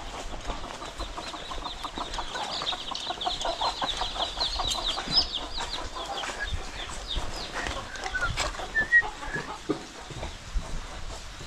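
Chickens clucking in a quick run of short repeated calls lasting several seconds, with a few higher chirps about nine seconds in.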